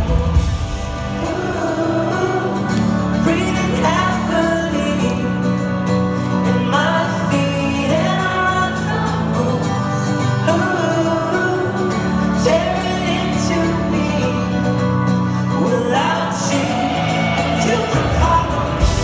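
Indie folk-rock band playing live, heard from the crowd: sung vocals over strummed acoustic guitars and a held low note in a quieter passage. The deep bass and drums come back in strongly near the end.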